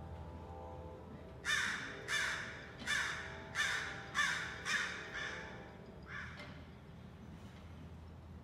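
Crow cawing: a run of about seven loud, harsh caws roughly half a second apart, then one fainter caw a second later.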